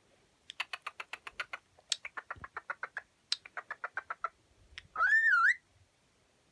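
Cockatiel making three runs of rapid clicks, about ten a second, then one short loud whistle that rises, dips and rises again.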